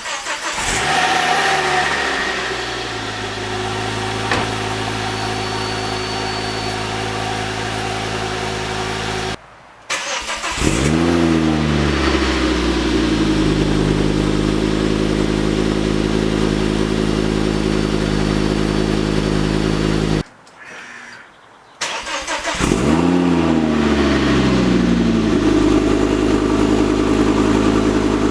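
Ford Focus ST Mk2's turbocharged 2.5-litre five-cylinder engine started three times in separate clips, with short silent cuts between them. Each time it fires, flares up briefly, then settles to a steady idle, heard through the stock and Cobra aftermarket exhaust systems being compared.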